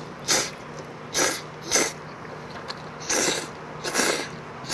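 Instant ramyeon noodles being slurped from a pot in a run of short, quick sucks, about five in a row.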